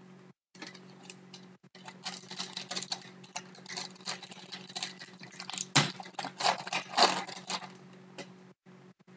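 Plastic wrapper of a hockey card pack being torn open and crinkled by hand, a fast run of crackles and rustles with a few sharper rips near the middle and later.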